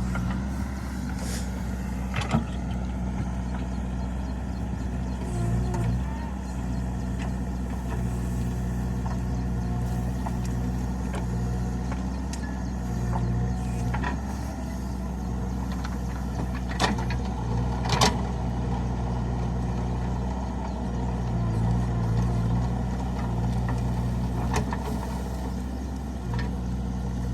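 Diesel engine of a backhoe loader or tractor running steadily, its drone rising and easing now and then, with a few sharp metallic knocks, the loudest about two seconds in and two-thirds of the way through.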